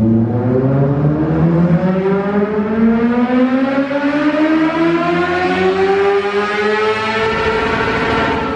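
Honda CBR600 inline-four engine at full throttle on a chassis dynamometer during a power run. Its pitch climbs steadily through the revs and levels off near the top toward the end.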